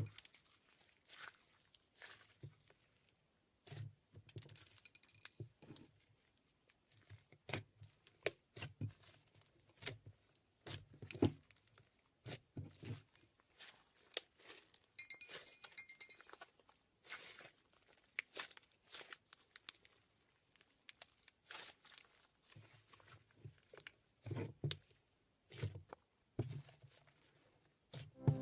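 Slime being handled and squished, giving faint, irregular crackles and small pops.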